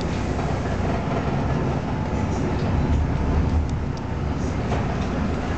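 A bus in motion heard from inside its passenger cabin: a steady low rumble of engine and road noise, with a few faint clicks over it.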